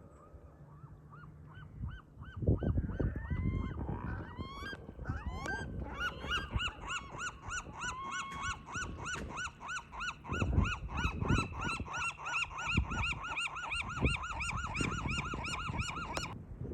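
A flock of geese honking: many overlapping calls, several a second, building over the first few seconds and cutting off suddenly near the end.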